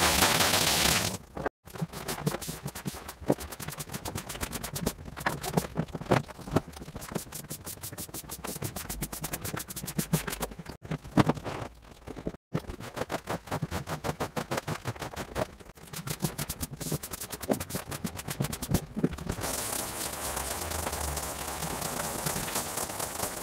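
Sped-up rug cleaning: tools worked over a rug in rapid repeated strokes, several a second, broken by a couple of brief cuts. Near the end the strokes give way to a steady hiss.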